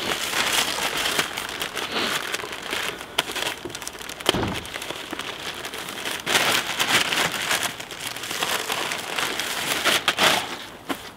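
Black plastic garbage bags rustling and crinkling in irregular crackles as they are pulled and folded around an engine, with a single dull knock about four and a half seconds in.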